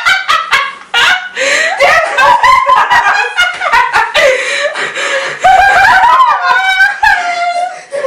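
Two young women laughing loudly in high, squawking fits, with gasps for breath in between.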